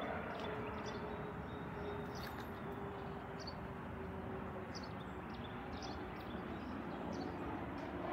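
Distant jet airliner running: a steady rumble with a faint tone that slowly falls in pitch. Short high chirps sound over it every second or so.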